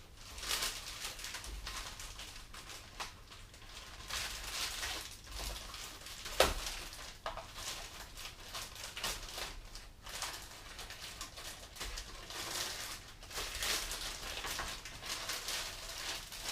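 Handling noise from unpacking model airplane parts: irregular rustling and crinkling of wrapping, with one sharp knock about six seconds in.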